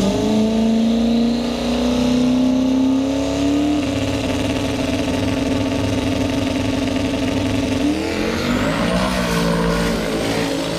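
Drag car's engine revving hard at the starting line, its note climbing slowly and then holding steady. About eight seconds in, the pitch jumps and changes as the car pulls away down the strip.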